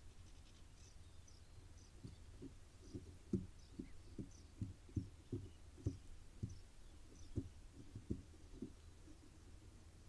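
A run of dull low thumps and knocks, about two a second for several seconds, from barn owls and their chicks shifting and tugging at prey on the floor of a wooden nest box, over a low steady hum.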